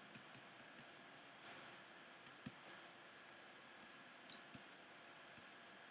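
Near silence with a handful of faint, short clicks, the sharpest about two and a half seconds in: a pen stylus tapping and writing on a tablet.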